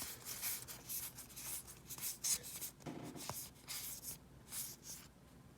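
Trading card booster pack and its cards being handled: a run of short, irregular rustles and scrapes of the wrapper and card stock.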